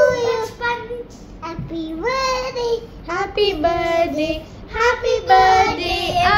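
A young child singing: several short sung phrases with high held notes that glide in pitch, separated by brief pauses.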